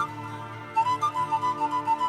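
Background music: a high melody line moving over a steady held chord.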